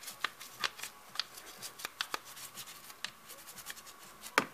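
A toothbrush scrubbing coffee residue off a plastic brew-group part of a DeLonghi Magnifica coffee machine. It makes short scratchy strokes, irregular, about two or three a second.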